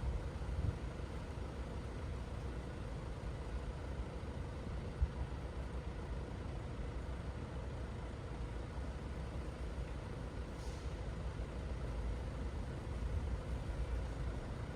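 Steady low rumble of city road traffic, with a faint steady hum, two short thumps and a brief hiss about two-thirds of the way through.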